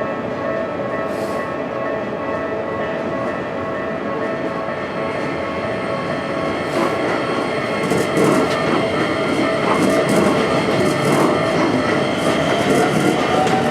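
Keikyu electric train running past a level crossing. From about eight seconds in it gets louder, with wheels clicking over the rail joints, and a whine rises slightly near the end.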